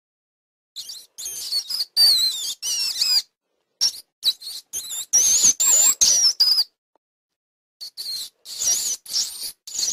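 High-pitched animal chirps and squeaks, wavering up and down in pitch, come in short bouts with silent gaps between them.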